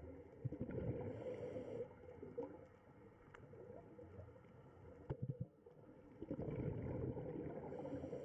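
Muffled underwater ambience picked up by a camera below the surface: a low bubbling, gurgling rumble of moving water with small clicks, swelling about a second in and again later.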